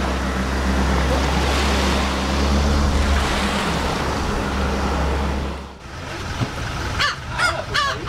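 Small waves washing on a sandy beach with wind rumbling on the microphone, which cut off abruptly; near the end, a Lava Gull gives a quick run of four or so harsh calls.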